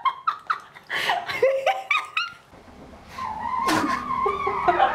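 Women laughing in a small tiled bathroom, in short bursts at first and then in a drawn-out wavering high note near the end.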